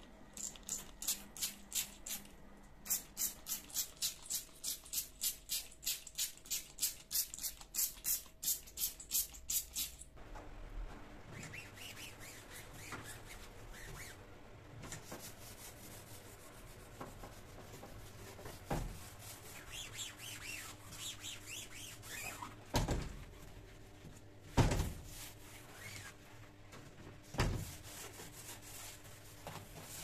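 Trigger spray bottle squirted over and over in quick succession, about two to three sprays a second for some ten seconds, as cleaning mixture goes onto a door's glass panels. Then a cloth rubs and wipes over the glass and door frame, with a few dull knocks.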